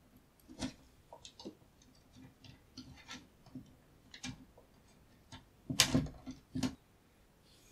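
Clicks and knocks of a soldering iron's 5-pin DIN plug being pulled out of one soldering station's socket and pushed into another's, with small handling clicks between. The loudest clicks come about six seconds in.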